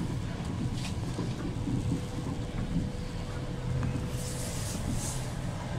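Steady rumble of a 1980s diesel train running along the rails, heard from the rear cab, with wind on the microphone. A brief high hiss comes about four seconds in.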